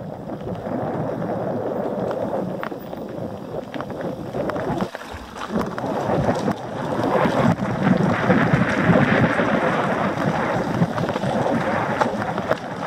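Mountain bike running fast down a loose gravel trail: tyres rolling over stones, the bike rattling and clicking over the bumps, and wind buffeting the action-camera microphone. The noise grows louder and harsher about seven seconds in.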